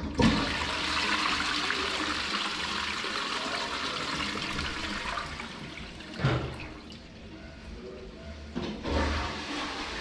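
Toilet flushing: a rush of water that starts abruptly and swirls down through the bowl, easing off, with two brief louder surges about six and nine seconds in.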